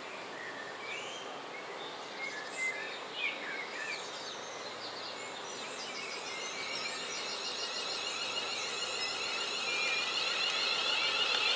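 Birds chirping, then a Class 350 Desiro electric multiple unit approaching, a high whine and rail noise growing steadily louder over the second half.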